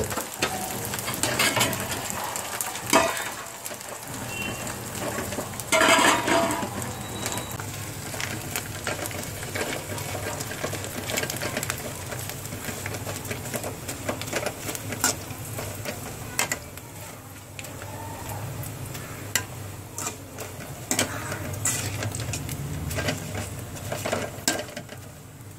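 A metal spoon scraping and clinking irregularly against a steel kadai while noodles are stir-fried, with a few louder knocks, over a low steady hum.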